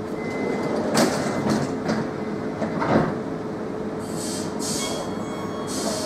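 Oslo metro MX3000 train standing at the platform with its equipment humming steadily. A few knocks come about a second in and again near three seconds, and short hisses follow near the end as it readies to depart.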